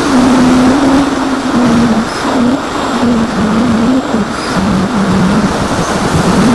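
Onboard sound of an AXN foam RC plane in flight: the electric motor and propeller hum at a pitch that wavers up and down with throttle, under heavy wind rush on the onboard microphone.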